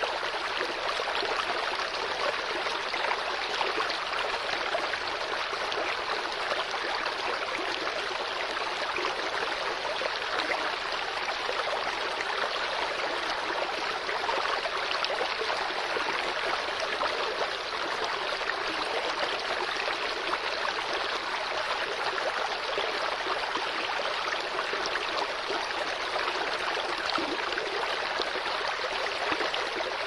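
Running water of a natural stream: a steady, unbroken babbling rush, with fine splashing detail and little deep rumble.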